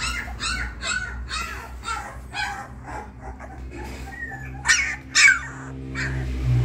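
Twenty-day-old Labrador puppy yelping and whimpering in a quick run of short high cries, about two a second, then two louder cries near the end.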